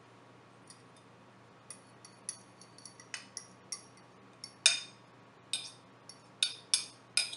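A spoon scraping and knocking against the rim and sides of a glass bowl as a thick marinade is scraped out. It makes a run of sharp clinks, faint at first and most frequent and loudest from about two seconds in.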